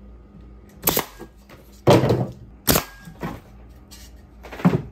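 Pneumatic staple gun firing 18-gauge, inch-and-a-quarter staples into a pine beehive frame: about four sharp shots at uneven intervals, with a lighter knock in between.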